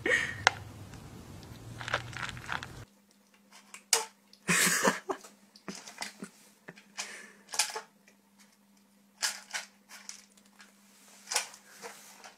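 Kitten eating dry cat food from a bowl: irregular small crunches and clicks of kibble and bowl, over a faint steady hum.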